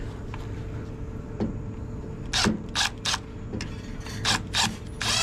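Milwaukee M12 cordless driver run in a few short bursts on a pressure control's mounting screw, ending in a longer burst, over a steady hum of running machinery.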